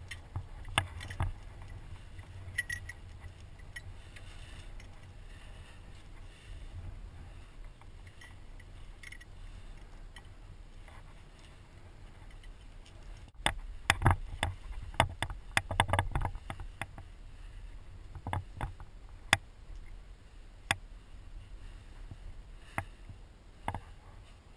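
A climber's hands, shoes and gear scraping and knocking on granite right next to a body-worn action camera: scattered sharp clicks over a steady low rumble, with a flurry of loud knocks about fourteen to sixteen seconds in.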